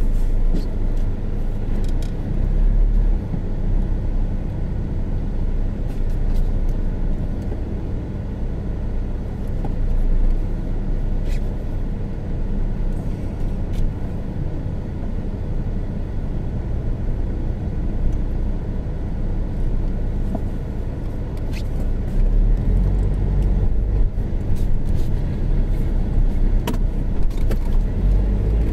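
Pontiac Sunfire heard from inside the cabin as it reverses and moves off: a steady low rumble of engine and road, swelling a couple of times, with a few small clicks.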